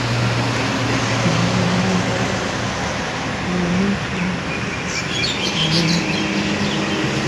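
Steady road-traffic noise, with a bird chirping in a quick run of short calls about five seconds in.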